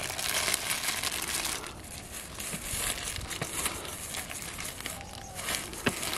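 Thin plastic bag crinkling and rustling as it is handled: a long stretch of crinkling at the start, then shorter bursts of it later on.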